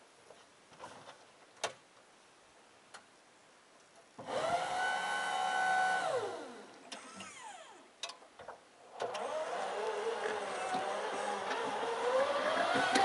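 Electric tractor's hydraulic pump whines steadily for about two seconds as the front loader lifts, then winds down in pitch. After a short pause the electric drive whines again with a wavering pitch that rises near the end as the tractor drives off.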